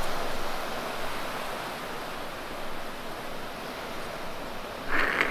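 Small surf washing up a sandy beach: a steady rush of breaking waves, with a brief louder noise near the end.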